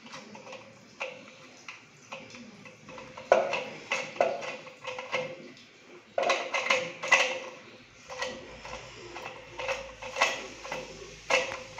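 Hard plastic cistern fittings (dual-flush valve and fill valve) clicking and knocking against each other and the ceramic tank as they are fitted and seated by hand: a string of irregular sharp taps with a short ring, loudest a little after three seconds and again around six to seven seconds in.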